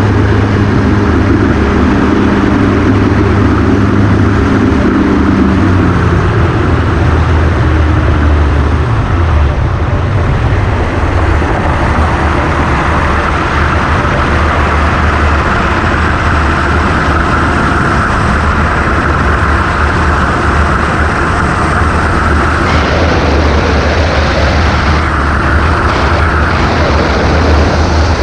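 Ultralight trike's engine running steadily for the first few seconds, then dying away as the engine is cut for an engine-off glide, leaving loud, steady wind rush on the microphone.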